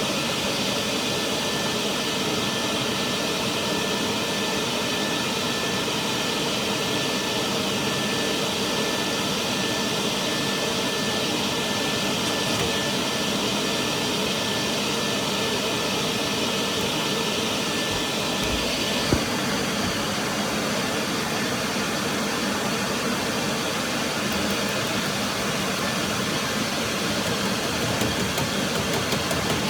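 Powered dryer-vent cleaning equipment running steadily with a high whine. About two-thirds of the way through, the whine drops out and the sound changes, and a single short knock follows.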